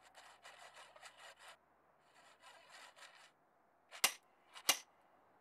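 Torque knob of a Thule Edge Clamp roof-rack foot being tightened: two runs of rapid small ratcheting clicks, then two sharp clicks about a second apart near the end. The sharp click is the knob's audible signal that full tightening torque is reached.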